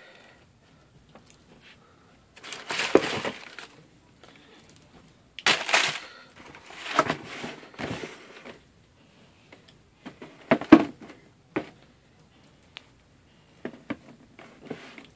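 Tissue paper rustling and crinkling in several bursts as sneakers are lifted out of a cardboard shoebox, with a few sharp knocks from the shoes and box being handled.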